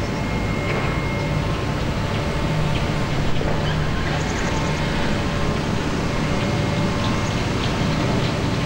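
Heavy crane machinery running with a steady low drone and a few faint ticks on top.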